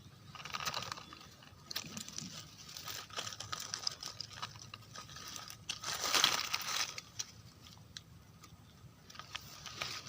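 Dry forest leaf litter and twigs rustling and crunching in irregular bursts, with scattered snaps, loudest about six seconds in.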